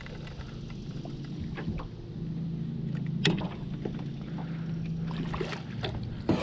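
Low steady hum of a bow-mounted electric trolling motor, with scattered sharp clicks and knocks on the boat, the loudest about three seconds in.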